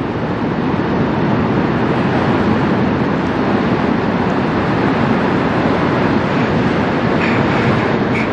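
Steady low rumble and rush from the CSL Welland, a Great Lakes bulk carrier, passing close by, with two short high squeaks near the end.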